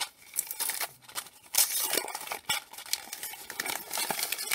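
Wrapping paper crinkling and tearing in irregular bursts as a small gift is unwrapped by hand. Light clicks and rattles come from the cardboard box of small metal safety pins inside.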